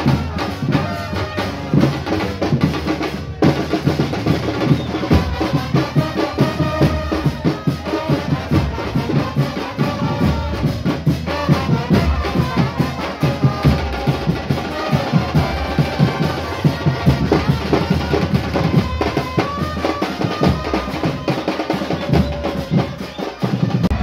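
Football supporters chanting in the stands over a steady pounding of bass drums and snare drums, the hinchada's drum band keeping the beat, with a brief dropout about three seconds in.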